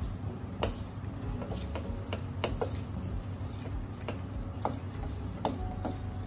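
Wooden spatula stirring and scraping ghee and flour around a stainless steel pan, with irregular light clicks as the spatula taps the metal.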